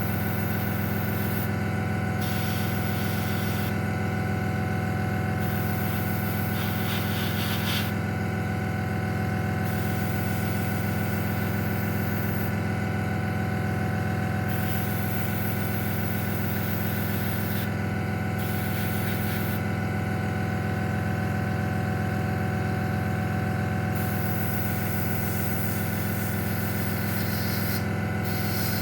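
Airbrush compressor running with a steady hum, while a KK Moon airbrush hisses in spells of one to several seconds as its trigger is pressed and released.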